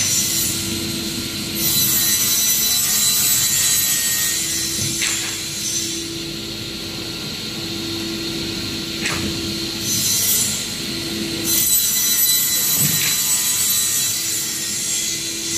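CNC two-way panel saw's circular blade cutting through a stack of plywood sheets: a steady high whine over the motor's hum, growing louder during the heavier stretches of cut. Three sharp knocks fall about four seconds apart.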